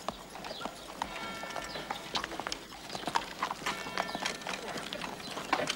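Carriage horses' hooves clip-clopping, an irregular run of sharp hoof strikes.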